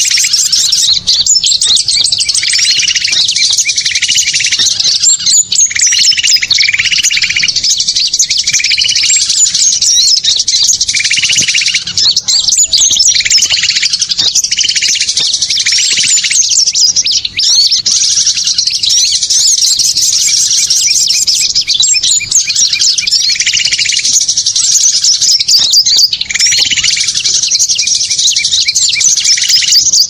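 Dense, continuous chattering of many small songbirds calling at once: high-pitched chirps and rapid trills, with a lower call note repeating about once a second for stretches. This is a loud bird-lure recording of small wild birds, played to draw birds in.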